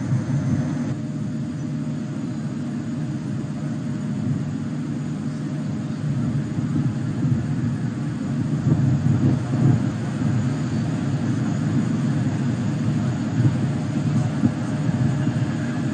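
Kawasaki C-2 transport's twin General Electric CF6 turbofan engines rumbling steadily as the jet flies past, growing a little louder after about six seconds.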